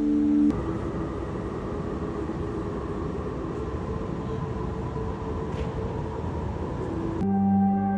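Dark electronic ambient music. A short held chord is followed by a dense, low rumbling drone with faint sustained tones, and a loud ringing tone with many overtones comes in about seven seconds in.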